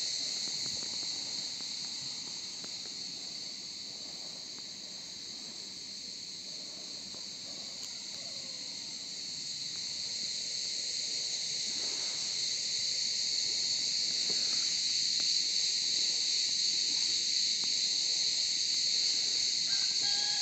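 A dense chorus of insects from the shore, a steady high-pitched shrill drone that holds without a break.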